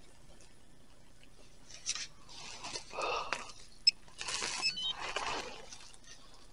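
Several short bursts of rustling and scraping from gloved hands and dry leaf litter, starting about two seconds in. About four seconds in there is a faint click and a few brief high chirps.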